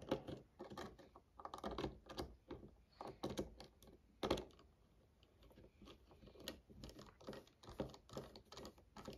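Irregular small clicks and taps of screws, driver and metal parts against a Demko AD20 folding knife as its hardware is set in place by hand, not yet tightened, with one sharper click about four seconds in.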